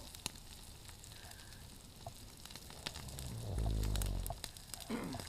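A sleeping person snoring: one long, low snore about three seconds in, lasting over a second, part of a regular snoring rhythm, with a short higher-pitched breath sound near the end. Faint scattered crackling clicks underneath.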